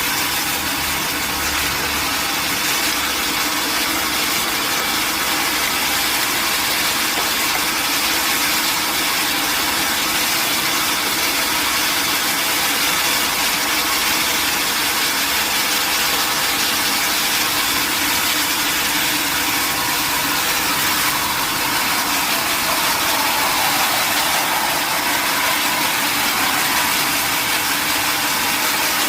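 Sawmill saw machinery running steadily, a loud continuous mechanical whir and hiss.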